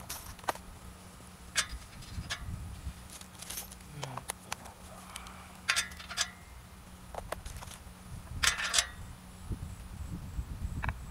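A wrench clicking and clinking against the bolts and brackets of a metal solar tracker frame as it is worked, in scattered short metallic taps, with a quick run of louder clinks about eight and a half seconds in.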